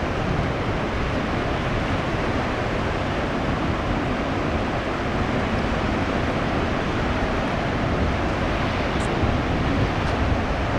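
High surf after a typhoon, breaking along a rocky shore in a steady, unbroken rush, with wind buffeting the microphone.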